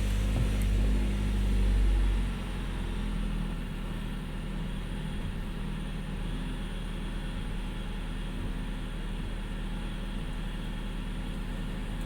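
2013 Ford C-Max Energi's 2.0-litre four-cylinder gasoline engine running with a steady low hum, then dropping away about two seconds in, leaving a quieter steady hum from the car.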